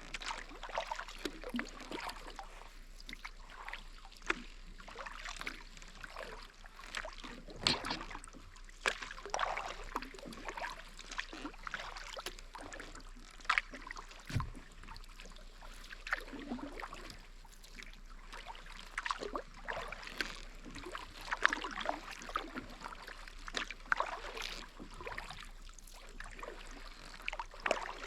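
Kayak paddle strokes dipping into calm water, with splashes and drips coming every second or two. A single low knock sounds about halfway through.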